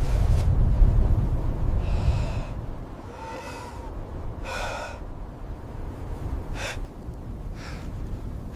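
A low wind-like rumble, then a series of short breathy gasps and snorts, the last two brief and sharp like sniffs.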